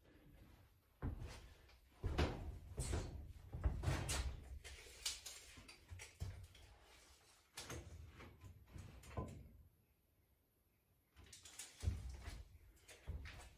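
Irregular knocks and clunks of tools and hardware being handled during building work, with a short quiet gap about two-thirds of the way through before a few more knocks.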